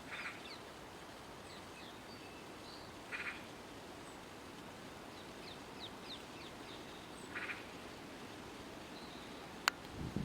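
Forest birds calling. A short rattling call repeats about every four seconds, with faint high chirps and whistles between. Near the end comes one sharp click, then a low thump.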